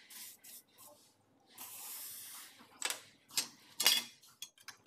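Gas brazing torch flame hissing in stretches, then three sharp metallic clinks from about three seconds in, the last the loudest, as steel pieces are handled on a metal workbench.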